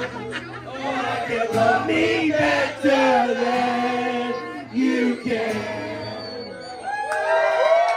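Live band music with singing: a vocal melody over the band, with sliding notes near the end.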